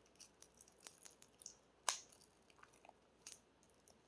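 Faint clicks and short rustles of an album and its cardboard and plastic packaging being handled, with one sharper click about two seconds in.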